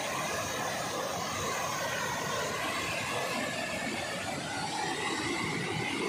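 Waterfall and fast-flowing pool water rushing steadily.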